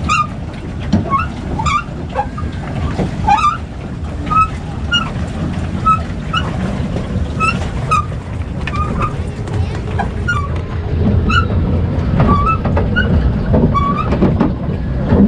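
A small rental boat being driven across a lake. Its drive mechanism gives a short squeak that repeats about once or twice a second, over a low churning rumble.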